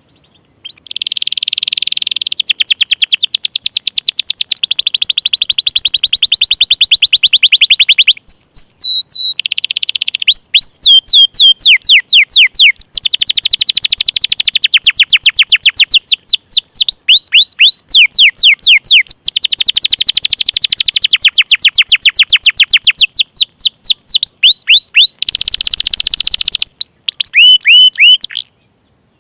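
Domestic canary in full song: long runs of rapid trills, each a quick string of identical falling notes that changes speed from one run to the next, with a short pause a little over a third of the way in.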